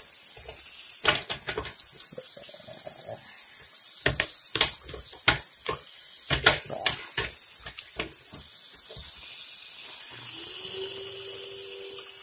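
Scattered sharp metal clicks and knocks of channel-lock pliers gripping and turning a faucet fitting, over a steady hiss. About ten seconds in, a steady low tone begins.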